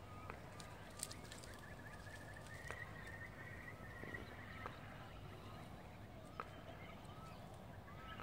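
Faint bird calls: short chirps and a wavering trill a few seconds in, with a few light clicks over a steady low rumble.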